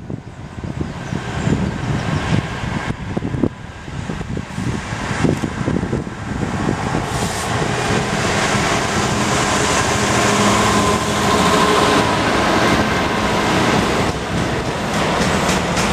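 British Rail Class 66 diesel locomotive with its two-stroke V12 engine, approaching and passing close by. It grows louder from about seven seconds in, with a steady engine drone, then loaded rail wagons roll past.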